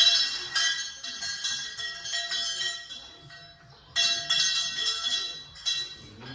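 Cowbell on a cow's neck clanking over and over as the cow moves, in two bouts with a short lull about three seconds in.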